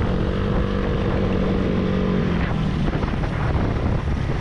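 Wind buffeting the microphone of a small motorcycle in motion, over the steady hum of its engine; the engine tone drops away a bit over halfway through while the wind rumble goes on.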